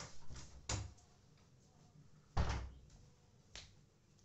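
Wooden room door being closed and latched by hand: a few sharp clicks and knocks, then a heavier thump about two and a half seconds in, the loudest sound, and a lighter knock near the end.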